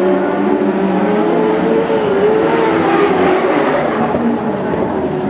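Racing engines of lightning sprint cars running, their pitch wavering up and down with the throttle.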